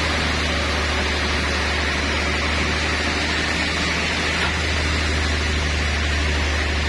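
Sawmill machinery running steadily: a constant low hum with an even rushing noise over it.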